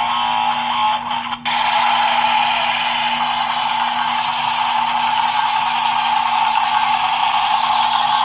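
Steady electric buzzing whir of a battery toy power tool. It gets fuller about one and a half seconds in and brighter and hissier about three seconds in.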